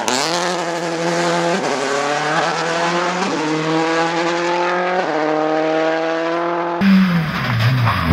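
Subaru Impreza rally car's flat-four engine accelerating hard away, its pitch climbing and dropping back at three quick upshifts. Near the end a Ford Escort Mk2 rally car's engine takes over, falling and then rising in revs.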